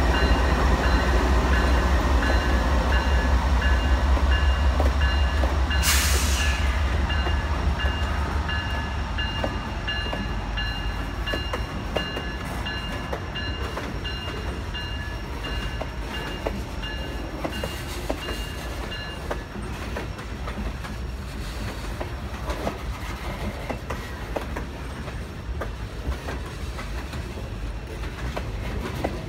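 Diesel freight locomotives rumble past close by, among them a GE Dash 9-40CW, and the low engine rumble fades after about eight seconds as boxcars follow, their wheels clicking over the rail joints. A repeating high ringing runs through the first two-thirds, and there is a brief hiss about six seconds in.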